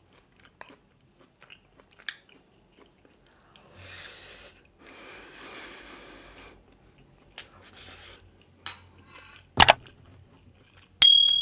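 Close-up eating sounds of someone eating grilled pork sekuwa and rice: chewing with soft wet noises and scattered small clicks, a loud sharp knock about nine and a half seconds in, and near the end a metal clink of cutlery on a plate that rings briefly.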